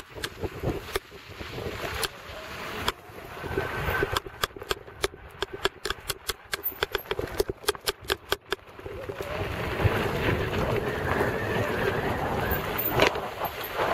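Mountain bike riding down a dirt forest trail, with wind rushing on the microphone and tyre and trail noise. In the middle comes a run of sharp clicks and knocks, several a second, from the bike rattling over rough ground. Near the end the rush builds again as speed picks up.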